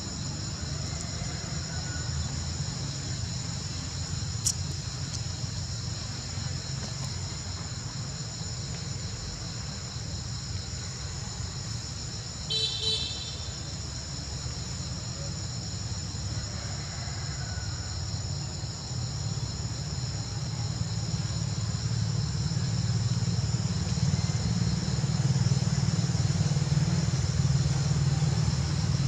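Outdoor ambience: a steady high drone of insects, under a low rumble that grows louder over the last several seconds. A single click about four seconds in and a brief pulsed chirp about halfway through.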